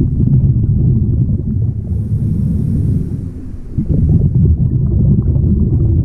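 Scuba diver's breathing through a regulator, heard underwater: a low rushing noise with fine crackle, which eases off briefly a little past three seconds in and then returns.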